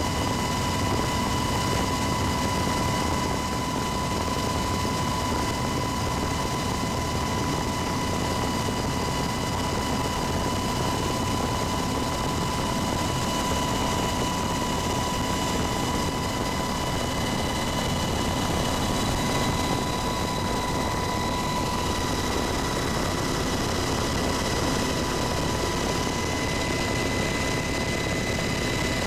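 UH-60 Black Hawk helicopter heard from inside the cabin in cruise flight: a steady, even drone of rotor and turbines with a constant high-pitched whine over it.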